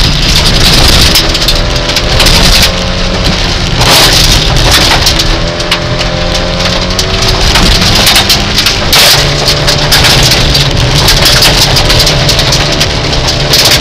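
Rally car's engine, heard from inside the cabin, revving hard on a gravel stage, its pitch climbing and dropping several times through gear changes. Gravel spray from the tyres rattles against the underbody throughout.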